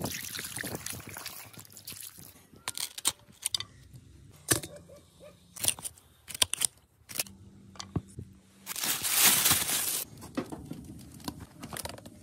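Water poured from a bowl splashing over a fresh pike on a wet cutting board, then a series of sharp knocks as a knife chops the pike into steaks. About nine seconds in, a louder rushing splash.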